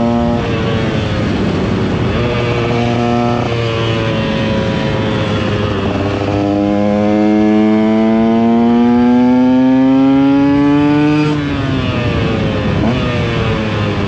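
KTM EXC 125 two-stroke motorcycle engine under way, heard from on board. The revs drop briefly near the start and pick up again, then climb slowly and steadily for about five seconds before falling off suddenly, with shorter rises and falls near the end.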